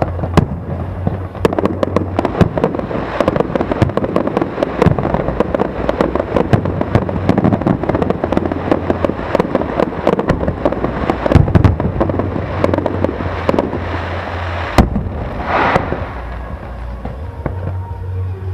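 Aerial fireworks display: a dense crackle of many small bursts goes on for most of the time. A single sharp bang comes about fifteen seconds in, followed by a brief hiss, and the crackling thins out near the end.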